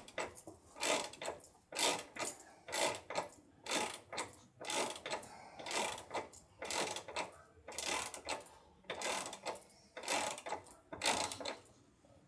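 Hand ratchet wrench tightening a bolt, its pawl clicking in a short burst on each return stroke, about once a second.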